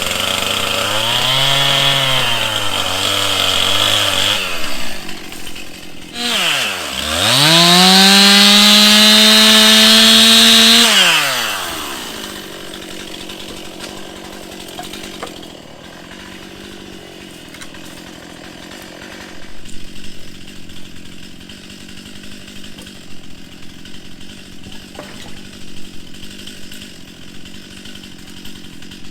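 Two-stroke chainsaw cutting up a felled tree: the engine pulls down to a lower, wavering pitch under load in the cut, revs up to a high steady scream at full throttle about seven seconds in, then drops back to a quieter idle for the rest.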